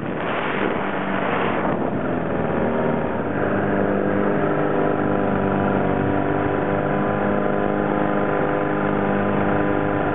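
Paramotor engine and propeller running steadily at constant power, heard from the pilot's seat, with wind noise over the microphone that is strongest in the first couple of seconds.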